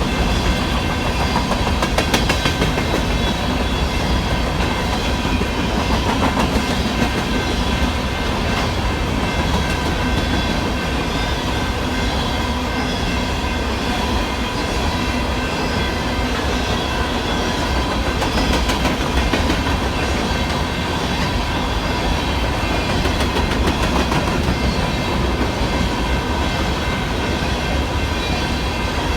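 Freight cars of a BNSF coal train rolling through a grade crossing with a steady rumble and irregular clicking of wheels over the rails. Under it, the crossing's electronic bell rings on as a steady high tone.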